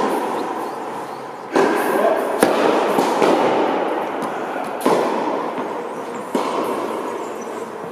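Tennis balls cracking off racket strings and bouncing on a hard court, several sharp hits a second or two apart, each trailing a long echo from a large indoor tennis hall.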